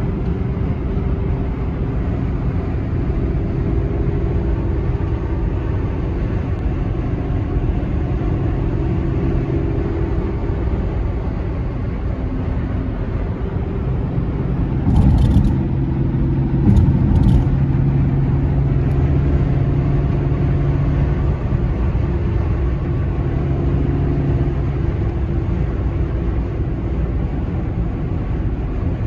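Range Rover's engine and tyre noise heard from inside the cabin while cruising on a highway, a steady hum with a low engine note. A few short knocks come about halfway through.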